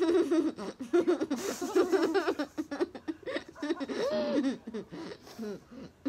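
Young girls giggling and snickering through closed mouths, laughter held back in short bursts, with a brief breathy snort about one and a half seconds in.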